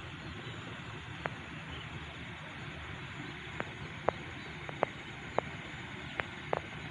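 Quiet open-air rural ambience: a steady low background noise with about seven short, sharp clicks scattered through the middle and latter part.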